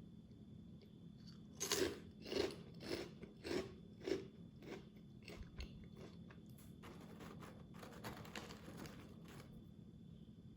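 A person chewing a crunchy snack close to the microphone: loud crunches about twice a second, then softer, quicker chewing that dies away near the end.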